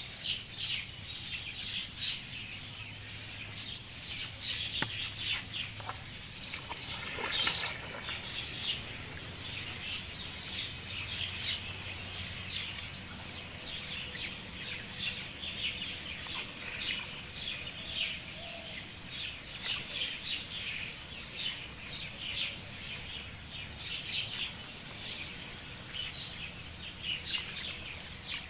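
Many small birds chirping continuously in quick short calls, with one brief louder noise about seven and a half seconds in.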